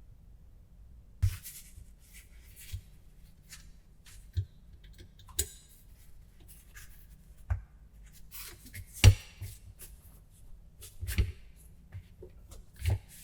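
Hand work in a small room: scattered knocks and taps, about eight of them and irregularly spaced, with the loudest about nine seconds in, between stretches of light rustling and rubbing as materials and tools are handled.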